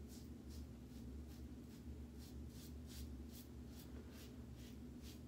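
Faint, quick strokes of a 1964 Gillette Slim adjustable safety razor, set on three, scraping through lathered stubble, about five strokes every two seconds. A low steady hum runs underneath.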